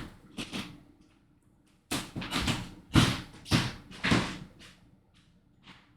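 A series of knocks and thumps, roughly two a second, from someone moving about a small room, fading to a couple of faint taps near the end.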